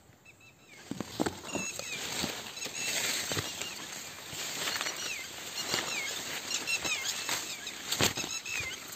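Rustling and crackling of dry leaves and foliage, sharpest about a second in and again near the end, with small birds chirping over it in many short, falling notes.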